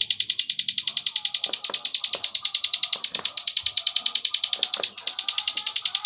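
Plain prinia (ciblek sawah) calling a fast, unbroken clicking trill, about ten high notes a second, the rapid 'klik' call used as masteran. A few sharp knocks sound in the middle.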